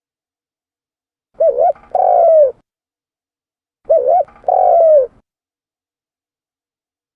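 Spotted dove (tekukur) cooing: two calls about two and a half seconds apart, each a quick two-part note followed by a longer note that falls in pitch at the end.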